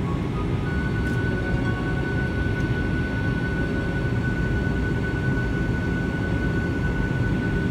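Cabin noise inside a Boeing 737-800 in flight: a steady low rumble of engines and airflow. A thin, steady high whine joins it about a second in.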